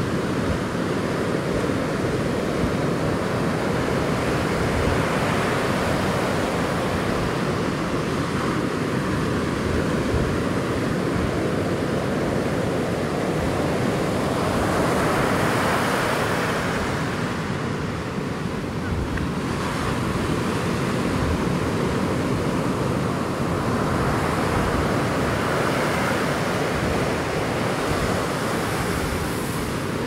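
Ocean surf washing in steadily, swelling louder twice as waves break, about halfway through and again later on, with a low rumble of wind on the microphone.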